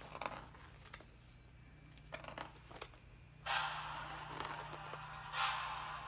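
Paper pages of a large hardcover illustrated book being handled and turned: a few light paper ticks and crackles, then from about halfway two longer rustling swishes as pages slide over.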